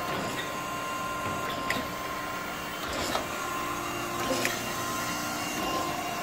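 Okamoto 124N surface grinder running with a steady hum, with a faint click about every second and a half.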